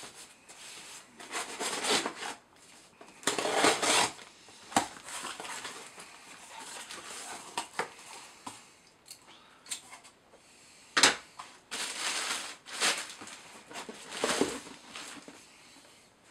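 Scissors slitting the tape on a cardboard shipping box, then the box flaps and packing inside rustling and crinkling as the box is opened and emptied, in irregular bursts. A sharp knock about eleven seconds in is the loudest sound.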